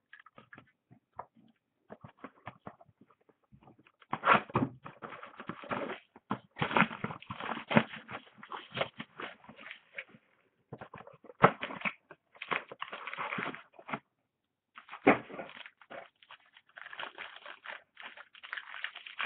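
Trading cards and plastic card holders being handled by hand: irregular rustling and scraping with light clicks and taps, one sharper click about midway and a brief pause a little later.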